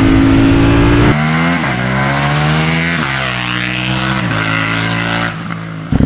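KTM 790 Duke's parallel-twin through an Austin Racing aftermarket exhaust, held at high revs, then the throttle shuts about a second in and the revs fall. Three sudden jumps in pitch follow, each dying away, as it shifts down with the electronic shifter blipping the throttle.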